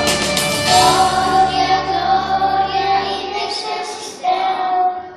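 Children's choir singing a Polish Christmas carol through microphones, holding long notes over a steady low instrumental accompaniment. The accompaniment stops about three and a half seconds in, and the singers hold one last long note near the end, closing the song.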